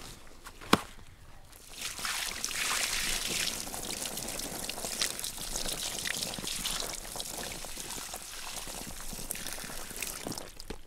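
Water poured steadily over a carp lying in a wet mesh sling, splashing onto the fish and net for about eight seconds. A single sharp click comes just before the pouring starts.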